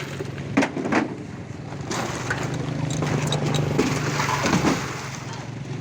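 A steady low engine-like hum with scattered sharp knocks and clatter.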